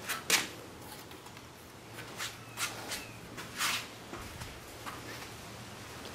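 Footsteps and handling scuffs: scattered light knocks and rustles, the loudest about a third of a second in, over a low steady hum.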